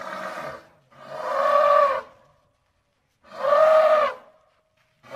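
African elephants trumpeting: four calls of about a second each with short pauses between, the middle two the loudest.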